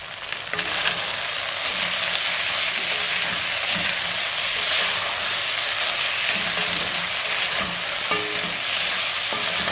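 Beef and sliced red onions frying in oil in a pot, sizzling steadily while a wooden spoon stirs them through.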